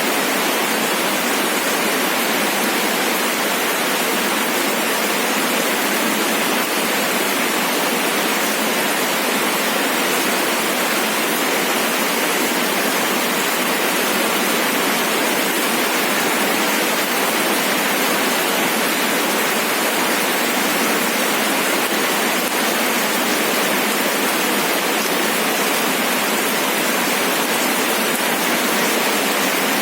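Steady rain, an even hiss with nothing deep in it and no single drops standing out.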